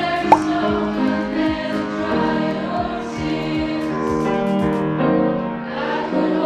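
A choir singing sustained chords, with upright piano accompaniment. A brief sharp blip sounds about a third of a second in.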